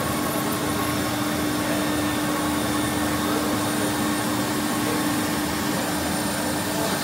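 MultiCam MG Series CNC router running with its dust extraction: a steady tone over an even rushing noise, as the router head travels over a plywood sheet.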